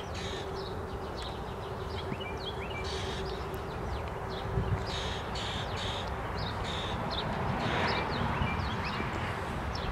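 Small birds chirping with many short, scattered calls over steady outdoor background noise and a faint steady hum.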